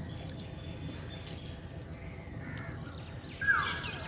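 An Asian koel calling: a loud, clear whistled call about three and a half seconds in, over faint outdoor background with other small birds.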